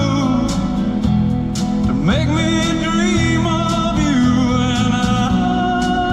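Greek song with male singing over guitar accompaniment and a steady beat.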